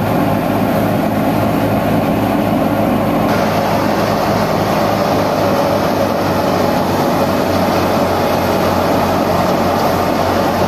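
Tractor-PTO-driven wheat thresher running under load as wheat is fed in, with the Fiat tractor's diesel engine underneath: a loud, steady mechanical running with a regular low throb, and the thresher's hiss of noise picking up about three seconds in.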